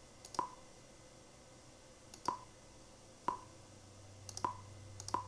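Computer mouse buttons clicked about five times at uneven intervals, each a short, sharp click.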